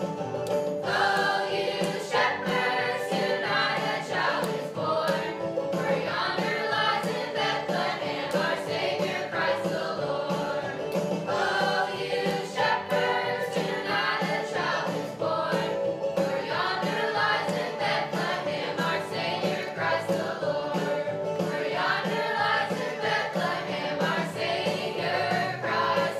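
A group of young voices sings a song together over instrumental accompaniment.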